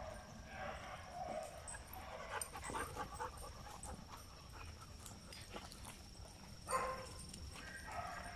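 Several dogs panting as they walk, with footsteps and claws scuffing on asphalt, and one short dog yip about seven seconds in.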